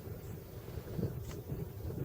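Strong wind buffeting the microphone: an uneven, gusty low rumble that swells and dips.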